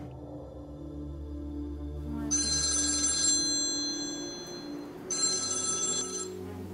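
Android smartphone ringtone ringing twice, each ring a bright high chime lasting about a second, about three seconds apart, over a low steady drone.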